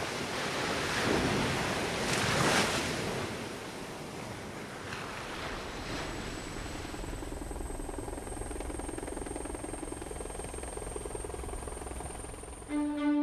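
Sea surf washing in, swelling loudly twice in the first few seconds, then settling into a steady low rumble with a faint high whistle. Bowed string music comes in right at the end.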